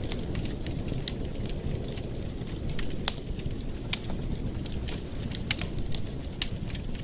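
Campfire burning with a steady low rumble of flames and irregular sharp crackles and pops of burning wood, one louder pop about three seconds in.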